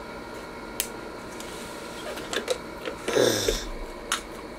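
Table-side eating noises: scattered small clicks and a louder crackle about three seconds in, from a plastic water bottle being handled after drinking and a plastic fork on takeout containers.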